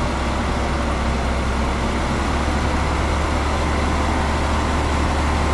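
Heavy diesel machinery running steadily: a constant low engine drone under a dense even noise, with no distinct revs or knocks.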